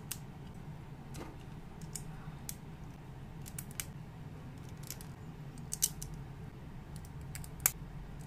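Plastic building bricks clicking and snapping as hands press plates and tiles together, with scattered sharp clicks, the two loudest in the second half. A steady low hum runs underneath.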